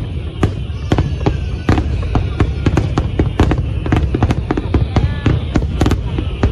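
Fireworks display: many aerial shell bursts in quick, irregular succession with crackling, over a continuous low rumble.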